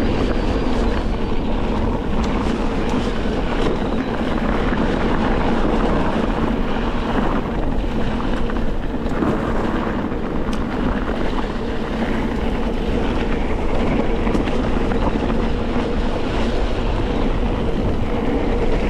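Wind rushing over an action camera's microphone while moving at speed, a loud, steady rush with a low rumble and a constant hum underneath.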